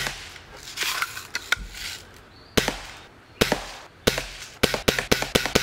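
Daisy Buck spring-powered BB gun being fired: a sharp pop at the start, more pops spaced under a second apart, then a quick run of sharp cracks near the end.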